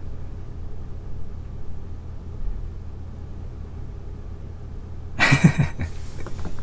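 A steady low hum, then about five seconds in a short breathy laugh from a man, a few quick bursts of breath with some voice in them.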